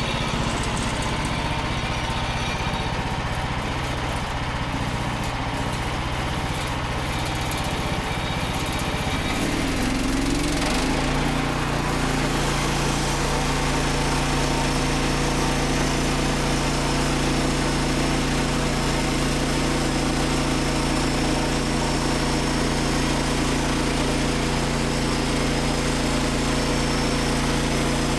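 Small petrol engine of a Frontier OS27 bandsaw sawmill running, revving up about ten seconds in and then holding steady at a higher speed.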